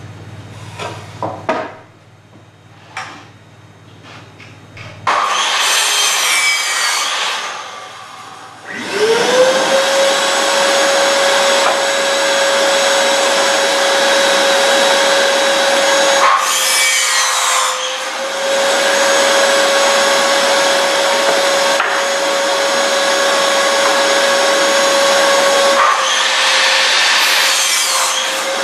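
Sliding compound miter saw crosscutting 2x4 lumber, with a few clicks of handling first. The saw's motor starts about five seconds in and its blade cuts through the wood three times, while a steady motor tone from a dust-extracting shop vacuum runs from about nine seconds in.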